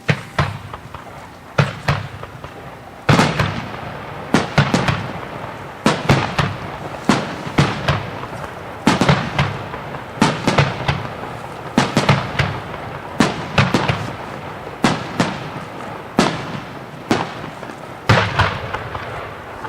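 Extra-large star mine fireworks barrage: a rapid string of loud aerial shell bursts, about one or two bangs a second, each trailing off in echo.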